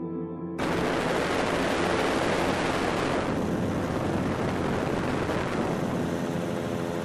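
A steady, loud rushing noise starts abruptly about half a second in, replacing soft ambient music, holds without pitch or rhythm, and cuts off suddenly near the end.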